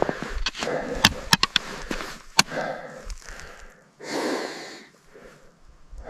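A hiker's breathing, with a long breath about four seconds in, over sharp clicks and scuffs of footsteps on a stony mountain path.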